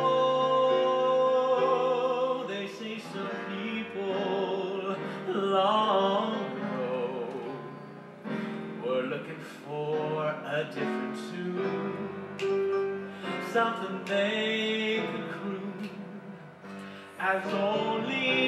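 A man singing a song with instrumental accompaniment, his voice moving between long held notes and notes with a wavering vibrato.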